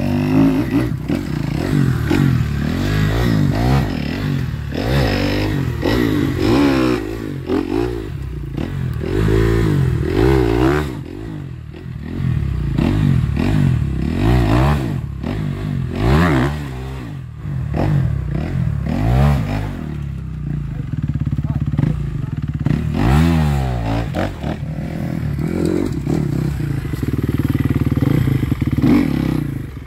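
Off-road motorcycle engine revving up and down over and over as the throttle is opened and closed.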